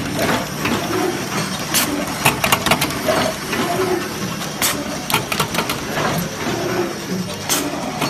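Automatic water-seal and heat-shrink-tube insertion wire-crimping machine running, a steady mechanical hum broken by frequent sharp clicks and knocks from its moving mechanism.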